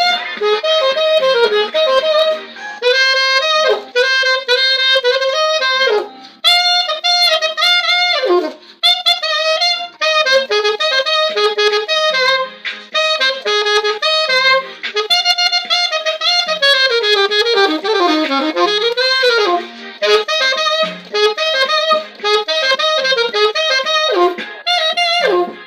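Saxophone playing an Afrobeats pop melody, with quick runs of notes and sliding bends.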